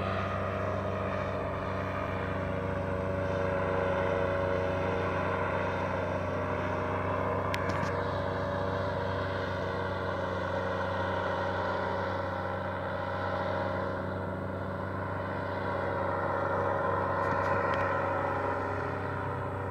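Paramotor engine droning steadily overhead, its pitch holding level while the volume gently swells and fades as the wing moves around the field. A couple of brief clicks, one about eight seconds in and one near the end.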